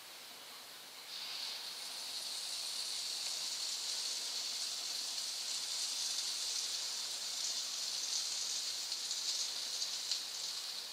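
Pancake sizzling in melted butter in a hot pan: the sizzle jumps up about a second in and then runs on steadily, with a few small crackling pops.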